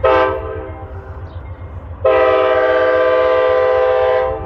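Locomotive air horn sounding a chord: a short blast, then a long steady blast starting about two seconds in.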